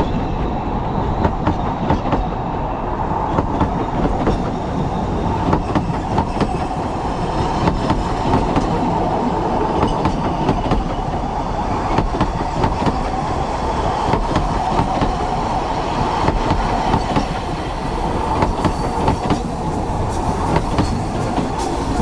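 Narrow-gauge steam-hauled train running steadily along the track: a continuous rumble with wheels clattering over the rails.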